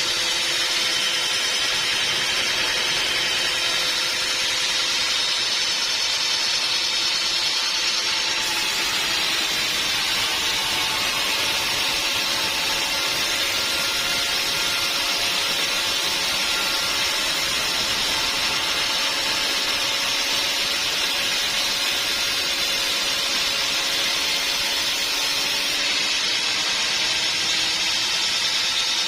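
Band sawmill running and cutting through a log: a steady hissing saw noise over a faint motor hum. The hiss grows brighter about eight seconds in and falls back a few seconds before the end.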